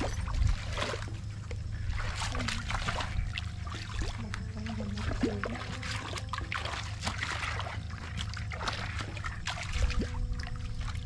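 Legs wading through shallow muddy water, splashing and sloshing irregularly with each step.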